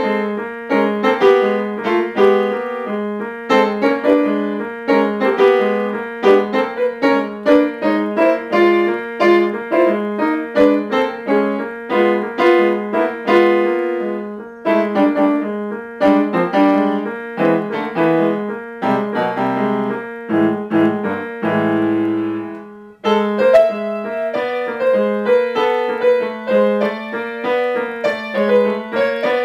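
Grand piano being played: a quick stream of notes over a steadily repeated low note. About two-thirds of the way through it moves down into lower, held chords, breaks off for a moment, then the repeated pattern starts again.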